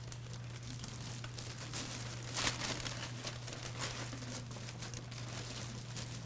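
Clear plastic wrapping crinkling and crackling as it is pulled off a framed photograph, loudest about two and a half seconds in, over a steady low hum.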